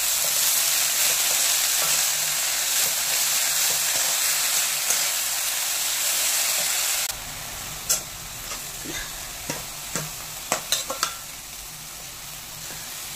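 Chopped fenugreek (methi) leaves sizzling as they are stir-fried in an aluminium kadai, a steady loud hiss that drops suddenly about halfway through. After that come a handful of sharp taps and scrapes of the spatula against the pan.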